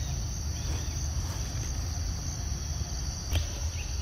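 Steady high-pitched buzzing of an insect chorus over a low rumble, with a single click about three seconds in.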